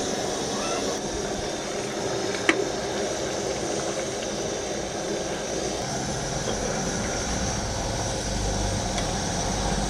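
Steady rushing hiss of a gas stove burner under a kadai of biryani, with one sharp click about two and a half seconds in and a few light ticks later as the rice is stirred with a metal spoon.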